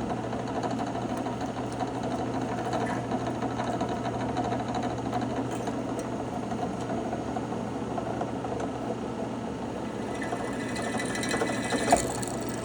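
Drill press running steadily with an even motor hum while drilling a small stone piece, with a short sharp tick near the end.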